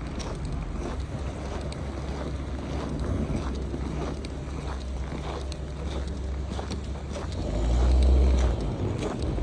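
Walking footsteps crunching on packed snow, about two a second, over a steady low rumble that swells loudly near the end.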